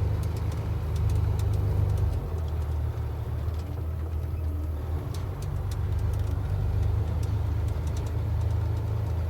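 A heavy vehicle engine running steadily with a low-pitched hum that shifts slightly a couple of times.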